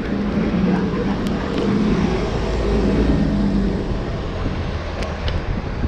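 A motor vehicle passing close by on a city street, its engine hum strongest over the first three seconds and then fading into general traffic noise.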